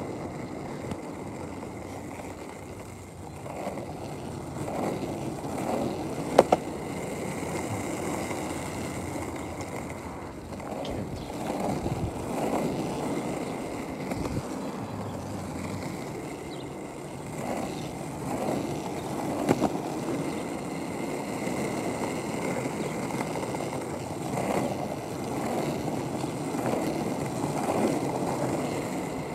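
Penny board (small plastic skateboard) rolling over pavement: a steady rolling rumble from the wheels, with a sharp clack about six seconds in and another near twenty seconds.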